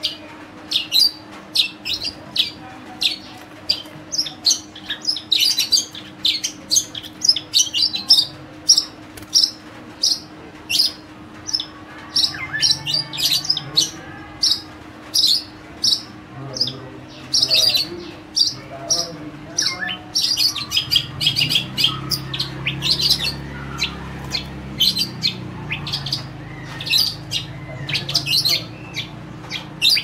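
Long-tailed shrike singing in its cage: an unbroken run of short, sharp chirps, several a second, in a song made of calls mimicked from other birds. A faint steady low hum and a low rumble sit underneath, the rumble strongest in the second half.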